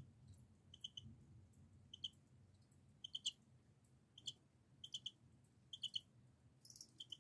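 Cricket chirping faintly with its wings: short chirps of one to three quick pulses at one high pitch, repeated irregularly about every second, with a few sharp high clicks.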